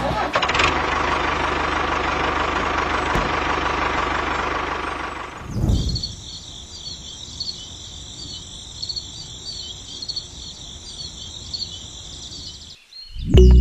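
A mini toy tractor's small motor runs for about five and a half seconds with a steady mechanical hum. A brief thump follows, then high insect chirping runs until it cuts off suddenly near the end.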